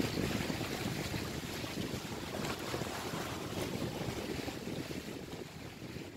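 Wind buffeting the microphone over small sea waves washing against a rock breakwater: a steady, even rush with no distinct events, slowly fading away toward the end.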